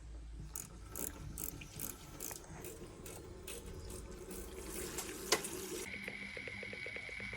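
Clicking and clattering of metal parts and hand tools, with one sharp click about five seconds in. Just after it, a steady high whine starts along with a fast ticking of about five ticks a second.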